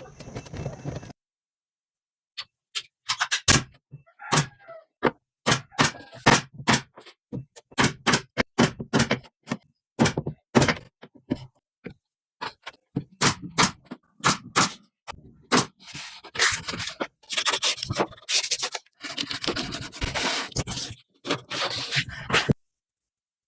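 Wood being worked by hand: a run of irregular sharp knocks and taps mixed with short scrapes, coming faster and denser in the second half.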